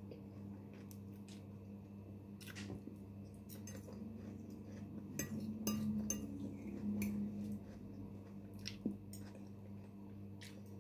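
Cutlery clinking lightly against plates while eating, scattered small clicks that come thickest in the middle, over a steady low hum.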